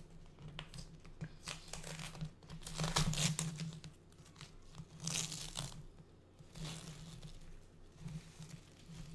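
Plastic plant packaging crinkling and tearing as it is handled and pulled away from a potted plant, in irregular rustling bursts, loudest about three seconds in and again around five seconds.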